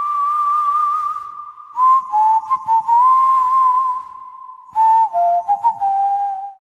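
A whistled melody: a long held note that slides up at the start, then a run of shorter notes that steps down in pitch near the end before cutting off.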